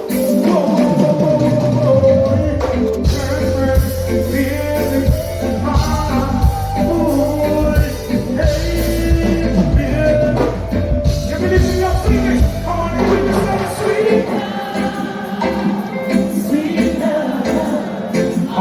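Live reggae band music with singing. A heavy bass line comes in about two seconds in and drops out a few seconds before the end.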